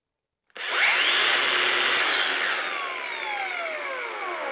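Makita cordless angle grinder with a disc fitted, running free with no load: switched on about half a second in, it spins up to full speed almost at once with a rising whine. It runs for about a second and a half, then is switched off and winds down, the whine falling in pitch and fading over about three seconds.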